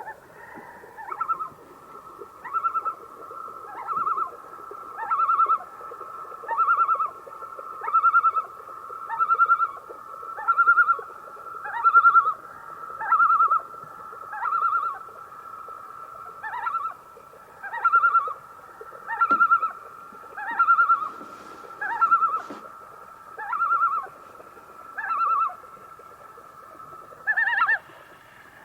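Common loon calling: a long run of about eighteen repeated wavering phrases, roughly one every second and a half, over a steady held note, with a higher, louder phrase near the end.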